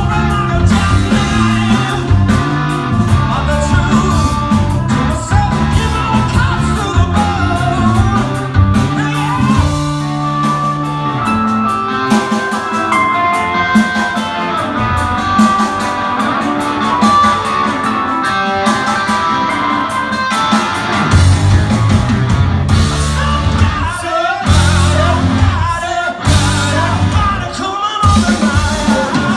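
Rock band playing live at full volume: a lead singer over electric guitars, bass and drums. About eleven seconds in, the low end drops away, leaving guitar and drums, and the full band crashes back in about ten seconds later.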